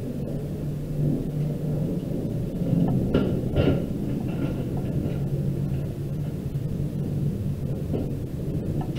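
Steady low rumble with a low hum, background room or equipment noise; two short, louder sounds a little after three seconds in.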